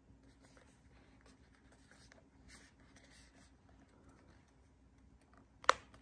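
Faint handling noise of a Dyson Supersonic hair dryer being turned over in the hand: soft scratches and rubs, with one sharp click near the end.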